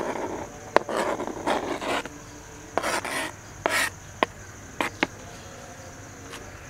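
Knife blade scraping diced carrot across a plastic cutting board into a clay bowl: several short rasping scrapes, with a few sharp clicks.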